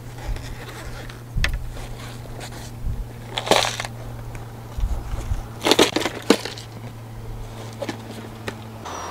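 Knocks and crackling rustles from fishing tackle being handled close to the microphone, louder twice, about three and a half and six seconds in, over a steady low hum that stops near the end.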